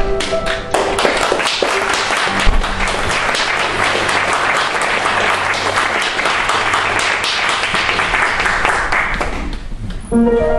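Audience applause, many people clapping, breaking in about a second in as the last sung and accompanied notes end, running for about nine seconds and dying away; music starts again near the end.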